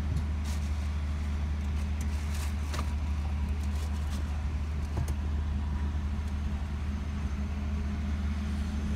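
Suzuki car's engine running, heard as a steady low hum from inside the cabin, with a few light clicks in the first few seconds.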